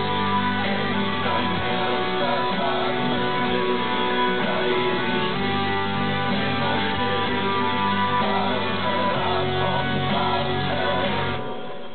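Background music: a band song with guitars, full and steady, thinning briefly near the end.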